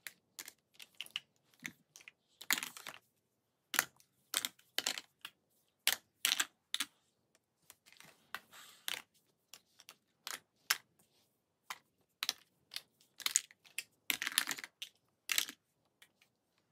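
Plastic and metal makeup compacts clicking and clattering as they are picked up and set down one after another on a pile, in quick irregular knocks with a few longer scraping rattles.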